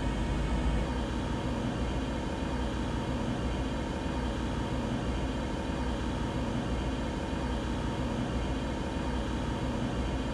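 Steady low background hum with no change through the pause.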